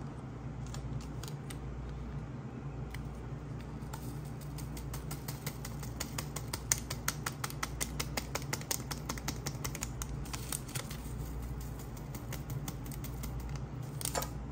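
Rapid patter of small dry clicks and crinkles as a paper sugar sachet is handled and sugar poured from it into a metal coffee pot, densest in the middle, over a low steady hum.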